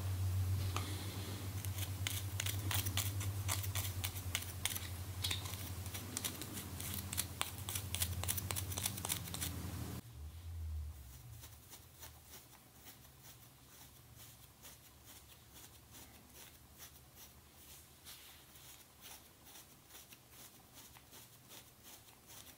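Close-up scratching and scraping at the skin around the ear and nape, lifting dandruff flakes of seborrheic dermatitis: many short, dry, crackly strokes, over a low hum in the first half. About ten seconds in the sound cuts to a quieter stretch of fainter strokes.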